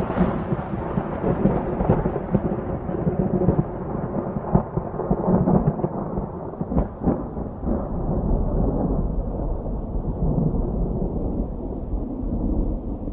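Thunder rolling after a lightning strike: a long low rumble whose sharper, higher crackle gradually fades away while the deep rumble carries on, with a few short cracks in it.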